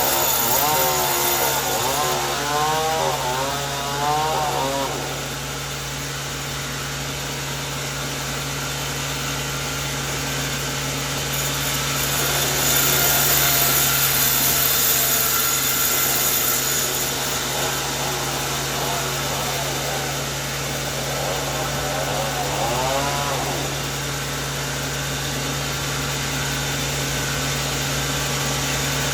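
Sawmill saw running steadily and cutting through coconut wood, with a constant motor hum; the cutting grows louder for a few seconds in the middle. Voices are briefly heard near the start and later on.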